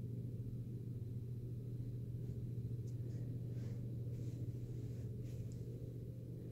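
A steady low hum, with a few faint soft knocks or rustles in the middle.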